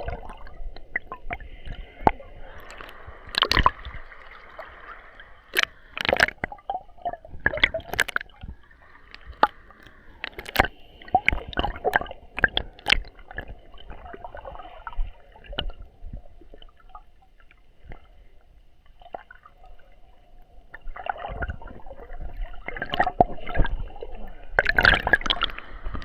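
Seawater sloshing and gurgling against a waterproof action camera's sealed plastic housing while swimming, with irregular sharp splashes and knocks. It is muffled through the case.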